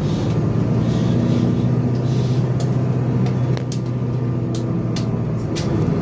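City bus running along a street, heard from inside the cabin: a steady engine hum with road noise, and a few sharp clicks or rattles in the second half.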